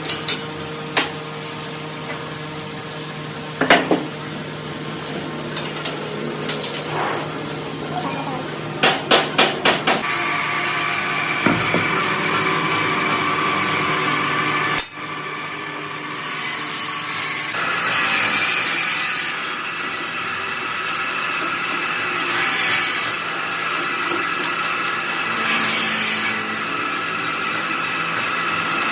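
Metal workshop sounds: hammer strikes and knocks on metal, with a quick run of five blows near ten seconds. A machine then runs with a steady whine. After an abrupt cut, several bursts of hiss come and go over a steady hum.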